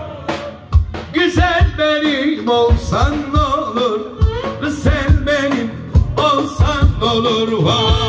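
Live Turkish folk-arabesk dance music: a steady darbuka beat, roughly two strokes a second, under a wavering, ornamented melody line from voice and strings.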